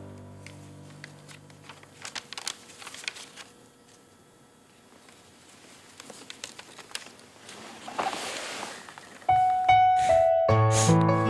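Piano background music dies away, leaving soft rustling and crackling of paper sheets as a stack of drawings is leafed through. Piano music comes back in about nine seconds in and grows fuller near the end.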